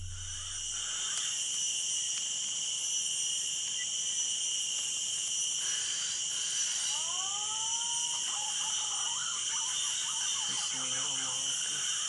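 Steady, shrill chorus of insects in tropical forest, holding high ringing tones throughout. About seven seconds in, two short rising whistled notes sound over it.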